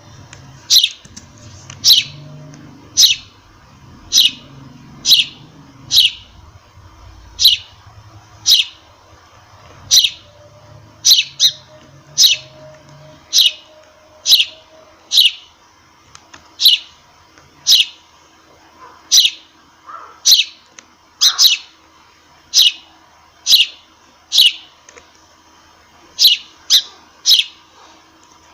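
Sparrow chirping over and over: short, sharp single chirps about once a second, now and then two in quick succession.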